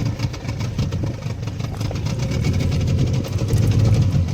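Fishing boat's engine running steadily with a fast, even pulse, held at a low speed.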